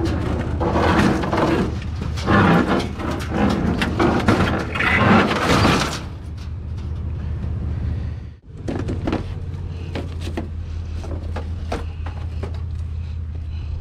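Junk being handled and loaded into a pickup truck bed: irregular clattering and scraping, loudest in the first six seconds, then lighter scattered knocks over a steady low rumble. The sound breaks off abruptly about eight seconds in.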